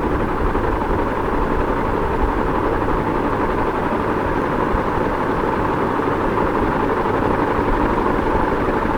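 Ceiling fan running at a constant speed: a steady, even rush of air with a low hum beneath, with no clicks, knocks or changes.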